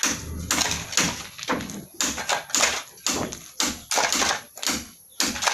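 Repeated short scraping and knocking strokes, about two a second, uneven in spacing and loudness.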